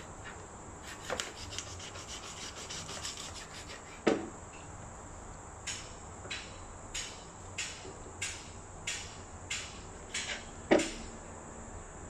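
A cleaver working through a whole raw duck on a cutting board. It starts with a quick run of rubbing sawing strokes, then a loud chop knocks against the board about four seconds in. Slower, even strokes follow about every half second, and another loud chop comes near the end.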